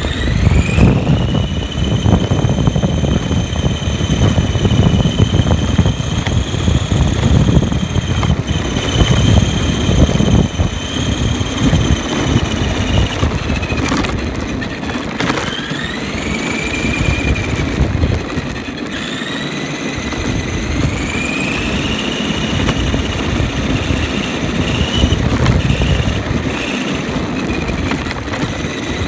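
Onboard sound of an ARRMA Granite Voltage 1:10 RC monster truck driving over rough asphalt. Its brushed 20T electric motor gives a high whine that rises and falls with the throttle, over a heavy low rumble of tyres and chassis vibration.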